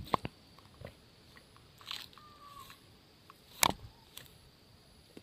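Scattered crunches and sharp clicks, the loudest a single sharp crack about three and a half seconds in, over a faint steady high buzz.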